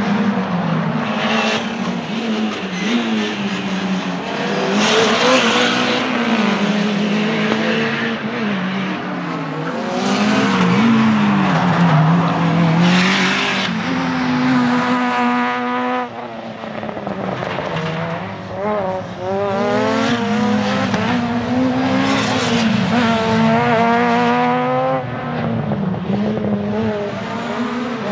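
Tuned Renault 5 GT Turbo race car's 1.4-litre turbocharged four-cylinder engine, heard from trackside as the car laps the circuit. The engine revs up and falls back again and again with gear changes and lifts for the corners, with a sharp drop and a fast climb in revs about sixteen seconds in.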